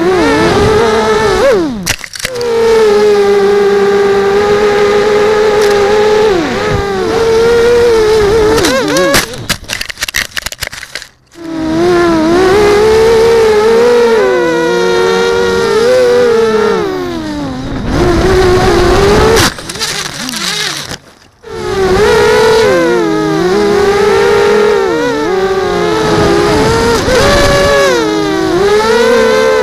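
Small FPV quadcopter's brushless motors and propellers whining, heard from the quad itself, the pitch rising and falling with throttle. Twice the whine breaks up into a clatter of knocks and cuts out for a moment before picking up again.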